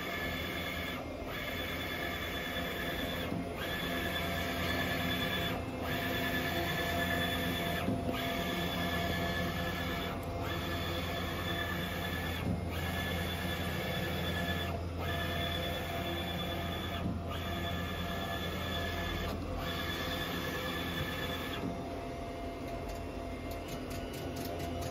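Roland VG2-640 wide-format printer printing: a steady mechanical hum and whine from the print-head carriage, breaking off briefly about every two and a quarter seconds. Near the end the whine stops and a quick, even ticking takes over.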